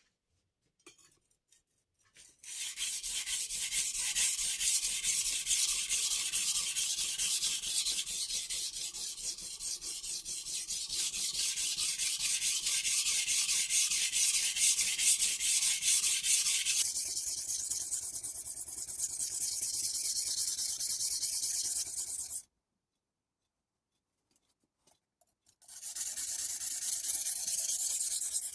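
Steady, rapid abrasive scraping on a wet whetstone, stopping abruptly about 22 seconds in and starting again a few seconds later.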